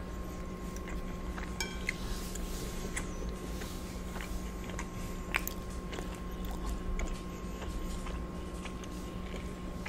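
Close-miked chewing of a mouthful of lobster ravioli in lemon butter sauce, with scattered short wet mouth clicks, over a steady hum.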